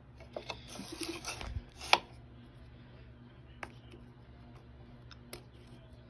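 Metal parts of a polished-metal vacuum cleaner being handled by hand: rubbing and light clicks at its side latch and dial, a sharp click just under two seconds in, then two single clicks later.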